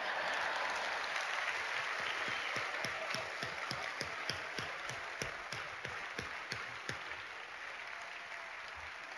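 Audience applauding. It starts at once, with distinct individual claps through the middle, and slowly fades toward the end.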